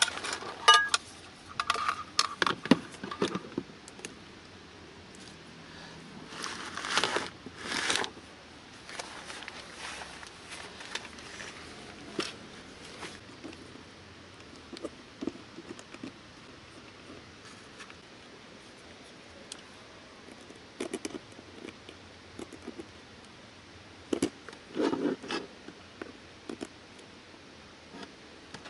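Handling noises from cables, plugs and a plastic toolbox power-station box being worked on: scattered clicks, scrapes and rustling. They come in bursts near the start, about seven seconds in and again near twenty-five seconds in.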